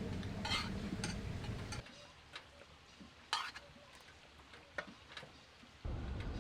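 Eating utensils clicking and scraping against dishes during a meal, a few separate sharp clicks. Under them a low steady rumble drops out suddenly about two seconds in and comes back near the end.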